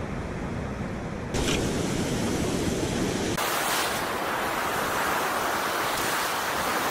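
Ocean surf washing over the beach, a steady rush of noise. It jumps louder about a second in and turns hissier past three seconds in.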